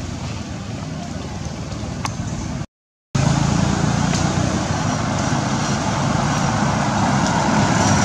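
Steady engine and road noise from motor vehicles, with a low hum. It cuts out for a moment about three seconds in, then comes back a little louder and swells slightly toward the end.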